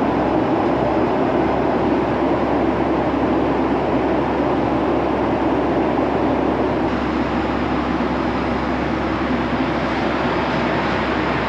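Steady rushing cabin noise inside a Boeing 757-200 airliner: the even roar of airflow and engines heard from a passenger seat, with no distinct events. It drops slightly in level about seven seconds in.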